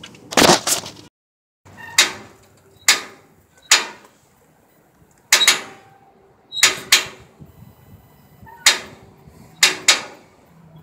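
Caboose hand brake wheel being turned, its ratchet and pawl giving sharp metallic clanks with a short ring, about nine of them at uneven intervals, as the brake is wound on. A short burst of handling noise comes first.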